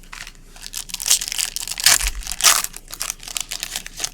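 Plastic wrapping of trading card packaging being torn open and crinkled, a dense run of crackling that peaks in the middle.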